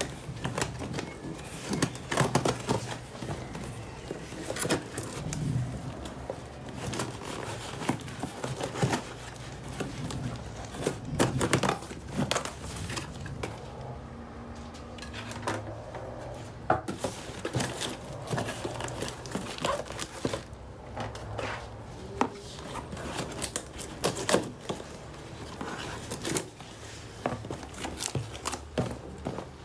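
Cardboard shipping box being opened by hand: a blade slicing through the packing tape, then the flaps scraping and bending back. Irregular clicks, taps and crinkling of plastic and packing paper come and go throughout.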